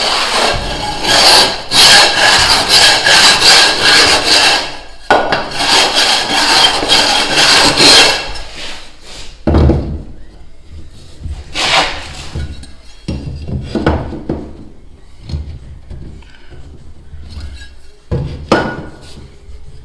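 Edge of a gypsum decorative-stone tile being rasped down in rough scraping strokes, two long spells over the first eight seconds, to take off a high edge so the tile sits flat. After that, a few short knocks and handling sounds.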